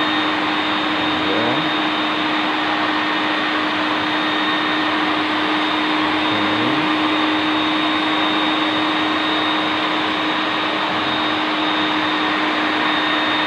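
Wet vacuum running steadily with a high motor whine, sucking dirty soapy water off a marble floor through its floor wand. A short rising sweep recurs every two to three seconds.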